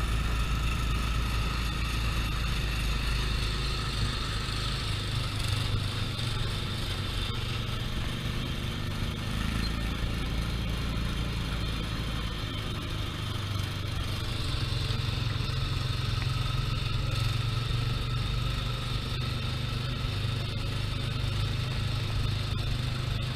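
Small gasoline engine of a Tomorrowland Speedway ride car running steadily under way. It eases off about halfway through, then picks up again.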